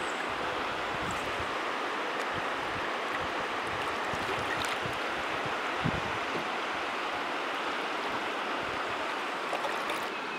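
River water rushing steadily around a canoe. There is a single soft knock about six seconds in.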